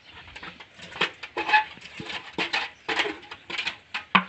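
Irregular scraping and knocking of a flat scoop against a round pan as cow dung is scooped out and dropped into a clay pot.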